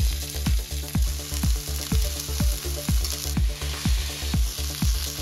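Chicken necks sizzling as they fry in hot vegetable oil in a saucepan on high heat, under background music with a steady beat.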